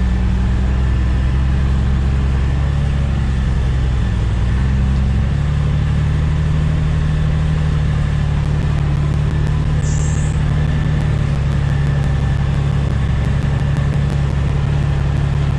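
Engine of a loaded truck running steadily as it climbs a gravel road, with its pitch shifting about five seconds in. Faint regular ticking joins in the second half.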